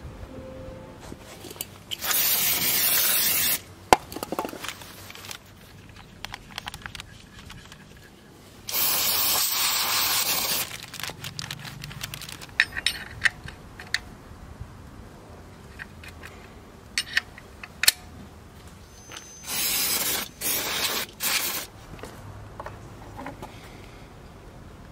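An aerosol can spraying in three bursts of one to two seconds each, the last one broken into short squirts. Between the bursts come scrapes, rubs and sharp clicks of hand work on the motorcycle.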